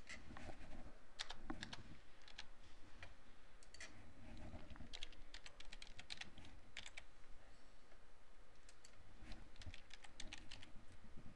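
Computer keyboard typing, keystrokes coming in short runs with brief pauses between.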